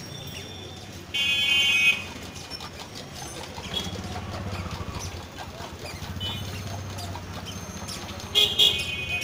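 A vehicle horn honks for nearly a second, about a second in, over a low steady traffic rumble. More short horn toots come near the end.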